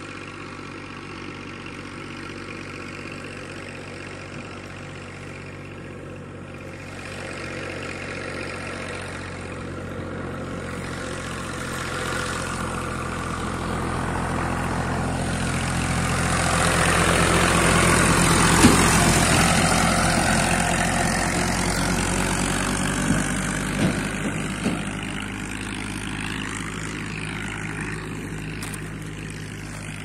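A heavy vehicle's engine passes by: it draws nearer and grows louder to a peak a little past the middle, then fades as it moves off. A few short knocks come during the fade.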